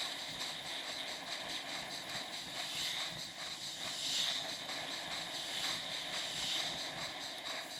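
Steady riding noise from a moving bicycle in traffic: a hiss of wind and tyres on the road with faint, evenly spaced ticking.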